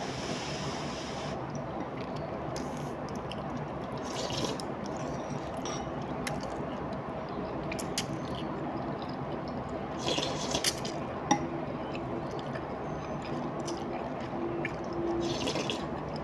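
Slurping of laksa noodles and broth sucked in from a bowl with chopsticks: short wet slurps at the start, about four seconds in, about ten seconds in and near the end, with a few light clicks between them, over a steady low background hum.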